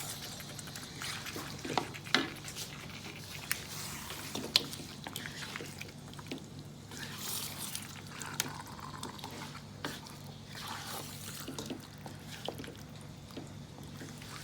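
Kitchen sounds: scattered light clicks and knocks of utensils, with wet, liquid sounds, over a steady low hum.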